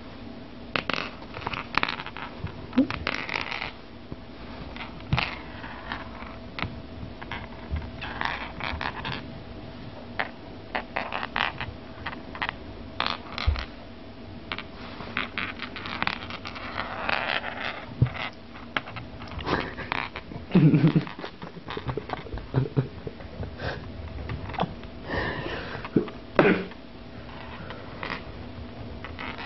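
A cat wriggling and scrabbling: irregular scratching, scraping and rustling, with a short low sound a little after twenty seconds in.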